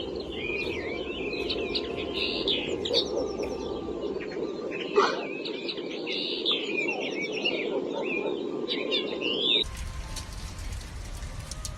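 Many small birds chirping busily over a steady low hiss. Near the end the sound cuts to a quieter hiss with scattered light ticks.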